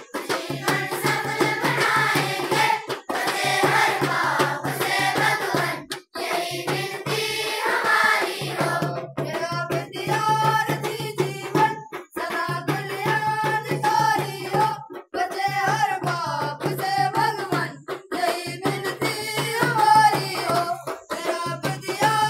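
Schoolchildren singing together in unison, in phrases with short breaks, with a hand drum keeping time.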